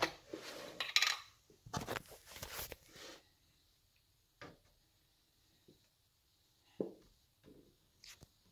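Kitchen handling noises: about three seconds of rustling and clattering as a plastic milk bottle, a tea box and a mug are picked up and moved about, then three short separate knocks as things are set down on the counter.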